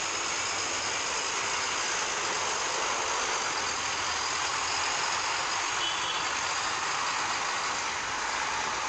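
Steady city street traffic noise, an even hiss with little low rumble, as buses and cars pass.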